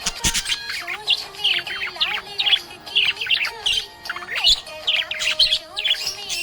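Budgerigar chirping and warbling in a rapid, continuous run of short chirps, over quiet background music.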